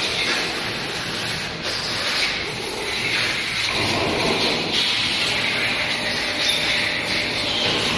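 PET preform injection moulding machine running with its mould closed: a steady mechanical hiss and hum that grows fuller and a little louder about three and a half seconds in.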